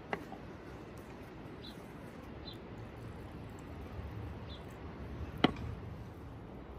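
Metal spoon and glass clinking against a stainless-steel mixing bowl while flour and water are stirred into dough: a light clink just at the start and one sharp, loud clink about five and a half seconds in, over a quiet background.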